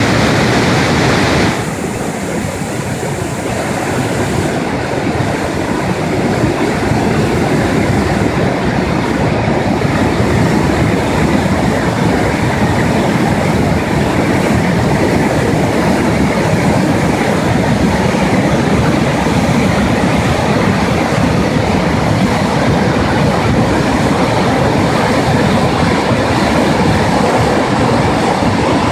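Štrbački buk waterfall and the Una river's rapids in high water after rain: white water rushing loudly and steadily. The sharpest part of the hiss thins about a second and a half in.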